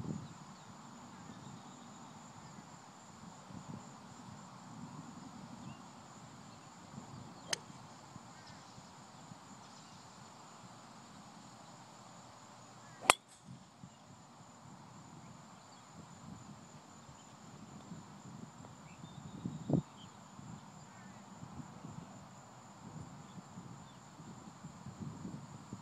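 A golf driver striking a teed ball with one sharp, loud click about halfway through, after a fainter click earlier. A steady high insect hum runs underneath, and a dull thump comes near the end.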